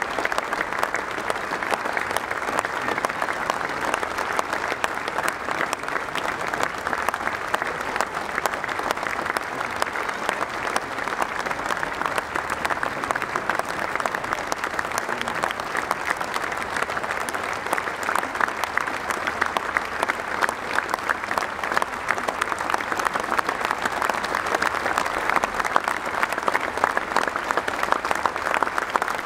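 A large stadium crowd applauding steadily: dense, unbroken clapping that keeps an even level throughout.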